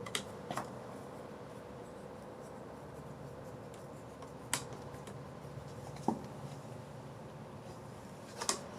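Faint scrapes and a few small clicks, spaced a second or more apart, of a screwdriver working the small star-pattern security screw at the bottom of a Ring video doorbell, over a low steady background hum.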